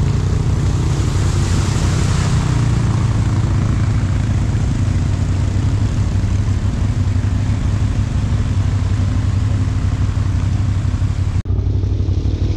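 ATV engines running steadily while the quads splash through a shallow river, wheels throwing water, with a rushing hiss over the engine note. The hiss drops away abruptly near the end and the engine sound carries on.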